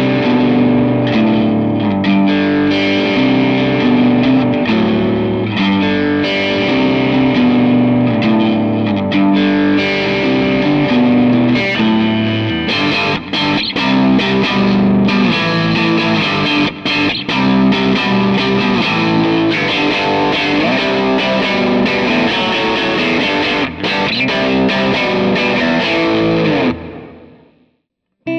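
Electric guitar played through an amp profile modelled on a Bad Cat Hot Cat 40 with a driven, distorted tone. Chords are strummed and let ring, turn choppier with short breaks about halfway through, then decay and stop shortly before the end.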